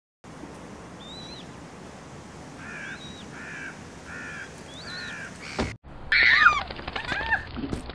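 Bird calls over an outdoor background: a few rising-and-falling whistled calls and a run of four caw-like calls. After a brief break near six seconds, louder high squealing cries take over.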